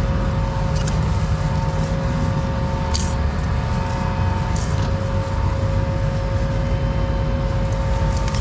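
Tractor and pull-type peanut combine running steadily, a constant low drone with a steady whine over it. There are a few brief clicks, about 1, 3 and 4.6 seconds in.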